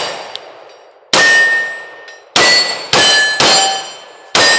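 SIG P365 Fuse 9mm pistol fired five times, the first about a second in and the rest about half a second to a second apart. Each shot is followed by a metallic ring, typical of a steel target being hit.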